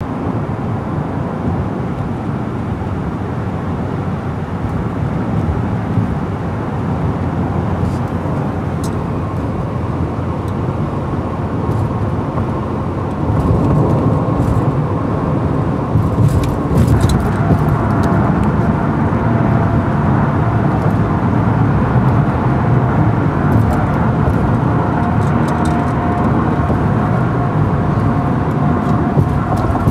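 Steady road and engine noise heard from inside a car's cabin at highway speed, a low rumble with tyre hiss. It gets louder about halfway through.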